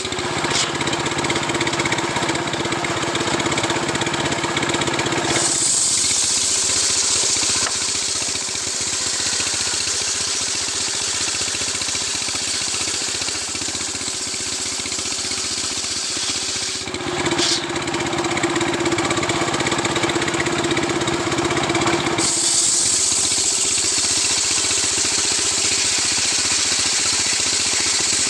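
Stihl two-stroke chainsaw running steadily as it cuts through a coconut palm trunk. Its sound shifts abruptly about five seconds in and twice more later.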